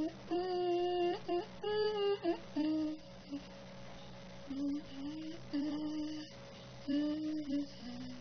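A voice humming a wordless tune in held notes with short breaks, at a moderate level.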